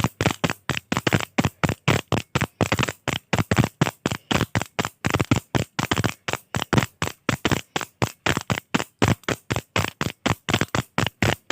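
A click pen's push button clicked over and over in a fast, steady rhythm of about five clicks a second.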